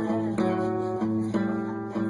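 Background music: acoustic guitar strummed in a steady rhythm, the chord changing about every half second.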